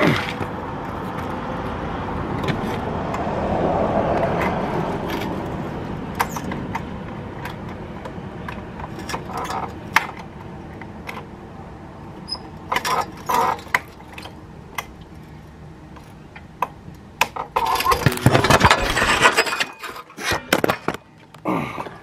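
Scattered metallic clicks and knocks as a motorcycle is hoisted on a lifting strap, over a steady rumble through the first half, with a loud run of clattering near the end.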